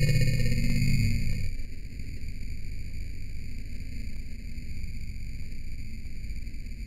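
A steady electronic tone made of several evenly spaced high pitches, over a low hum. It follows a louder sound that cuts off about one and a half seconds in.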